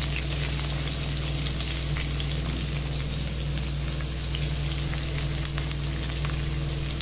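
Sliced onions sizzling in hot oil in a large kadhai over a high gas flame: a steady hiss with scattered small crackles, over a steady low hum.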